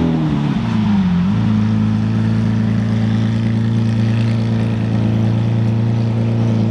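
Sports car engine running at low revs, a deep steady drone that wavers in pitch for about the first second and then holds steady.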